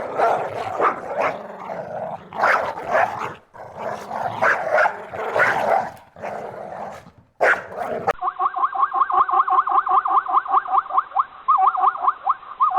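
A dog barking in irregular bursts of calls. About eight seconds in, the sound cuts abruptly to a different animal giving a fast, even run of short repeated calls, about six a second.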